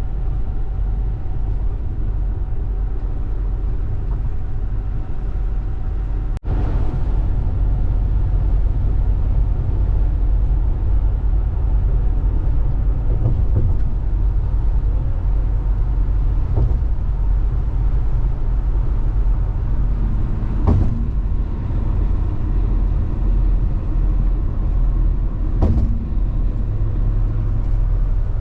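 Road noise of a moving vehicle: a steady low rumble of engine and tyres, briefly cut off about six seconds in and a little louder after, with a couple of faint knocks later on.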